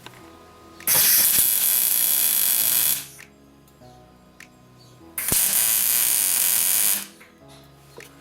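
A loud workshop metalworking tool runs in two bursts of about two seconds each, starting about a second in and again about five seconds in, cutting off sharply each time. Quieter background music plays underneath.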